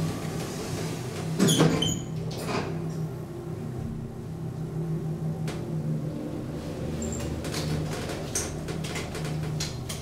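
Elevator car riding between floors: a steady low hum from the lift, with a louder knock about a second and a half in and scattered light clicks toward the end.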